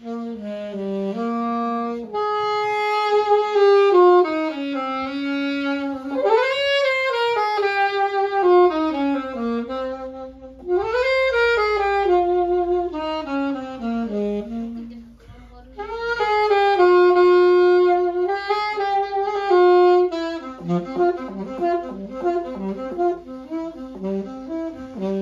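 Solo saxophone playing a slow, unaccompanied melody: long held notes, some entered with a scooping bend upward, in phrases broken by short pauses for breath. Near the end the line turns to quicker, shorter notes.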